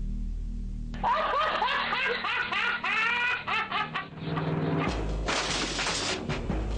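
A high-pitched laugh of rapid rising-and-falling peals, lasting about three seconds, comes in as low music cuts off about a second in. Busier music with clicking percussion follows.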